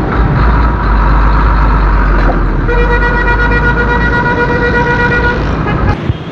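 Road traffic heard from a moving motorcycle, with a loud low rumble of wind on the helmet microphone. About three seconds in, a vehicle horn sounds steadily for nearly three seconds. The rumble cuts off abruptly near the end.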